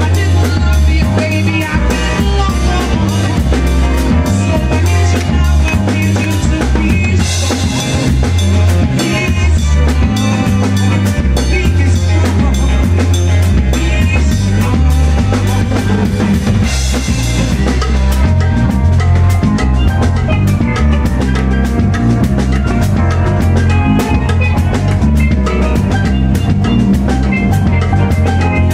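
Live band playing an upbeat number: drum kit with rimshots and a steady beat, a busy bass line and keyboard. Cymbal splashes come in twice, about a third and halfway through.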